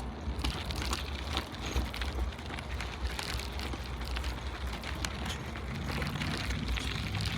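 Wind rumbling on the microphone of a bicycle in motion, with a steady crackle of tyres rolling over a rough trail surface.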